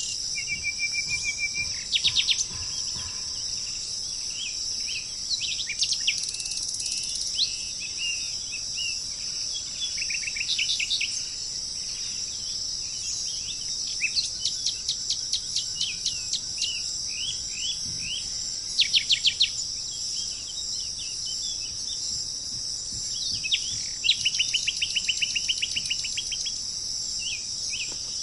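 Wild birds calling over a steady high-pitched insect chorus: short whistled notes, brief trills, and quick runs of rapidly repeated notes come and go throughout.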